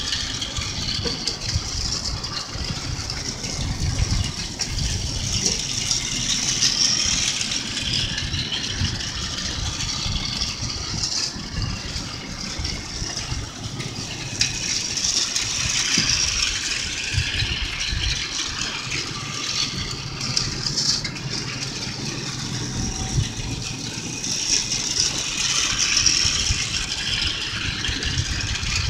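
Toy train running round its track under a bed: a continuous mechanical whir and clatter that swells about every ten seconds as the locomotive comes round close.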